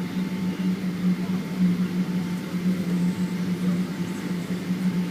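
Steady cabin noise inside a Boeing 777-200ER with its engines at low power: a constant low drone over an even rumble, holding level throughout.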